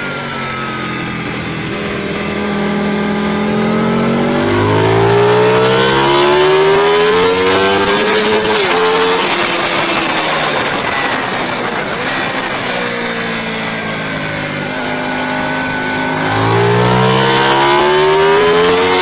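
Racing motorcycle engine heard from on board at speed, its pitch climbing hard under acceleration from about two seconds in, falling away as it slows through the middle, then climbing again near the end.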